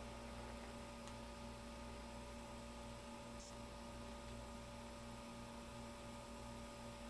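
Faint, steady electrical hum with no other clear sound.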